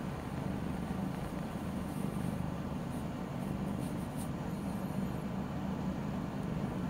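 A steady low rumble of background noise, with a few faint high chirps about four to five seconds in.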